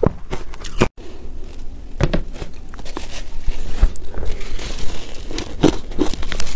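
Close-up crunching of someone biting and chewing shaved ice, dense crackly crunches. About a second in there is a brief break, then spoon scrapes and bites into crumbly, powder-coated ice, with several louder crunches.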